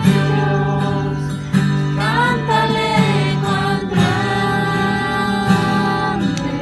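Music: a song with strummed acoustic guitar and a sung melody.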